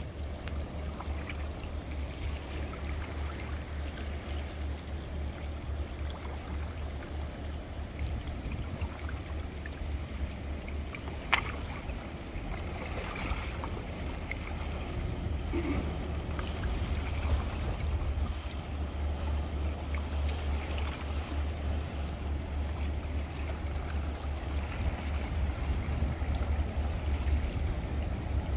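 Diesel engine of a Rhine ship running with a deep, steady drone while working hard, over the wash of water. A single sharp click about eleven seconds in.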